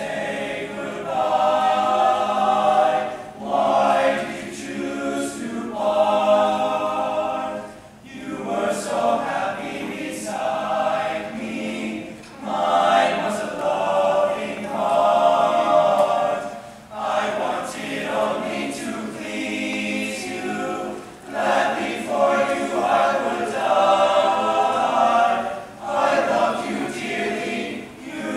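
Men's choir singing, the phrases separated by short breaths every few seconds.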